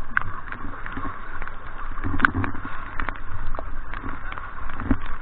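Paddling in a whitewater raft: paddle blades splashing and water sloshing against the inflatable raft, with steady hiss and many irregular clicks and knocks.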